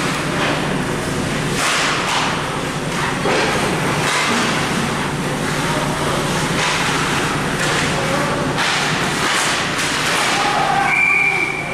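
Ice hockey game in an arena: skates scraping the ice and sticks and puck clacking in a run of short knocks, over a steady hum and crowd noise, with a brief whistle near the end.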